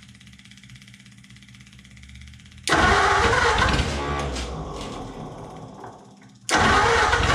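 1944 Ford flathead V8 cranked over by its starter without catching, in two bursts: one starting about two and a half seconds in and fading over about four seconds, the next starting near the end. The owner puts the failure to fire down to the carburetor not giving it enough fuel.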